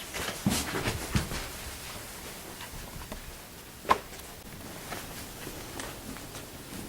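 Quiet room with a few scattered small knocks and clicks, the sharpest and loudest about four seconds in with a brief ring.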